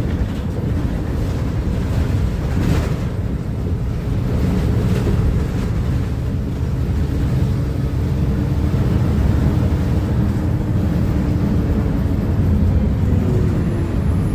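Diesel engine of a Mercedes-Benz O500UA bi-articulated BRT bus running steadily: a continuous low rumble with faint whining tones above it from about halfway through.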